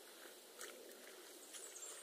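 Near silence: faint lakeside outdoor ambience with a few soft scattered ticks and a faint high chirp near the end.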